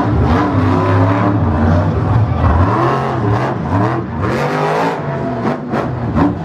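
Monster truck's supercharged V8 engine revving hard, its pitch rising and falling again and again as the throttle is worked through a jump, with a few sharp knocks as the truck comes down about five seconds in.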